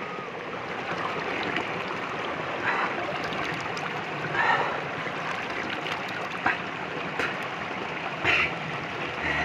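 Jungle stream rushing steadily over rocks, with a few short higher sounds on top, the clearest about halfway through and near the end.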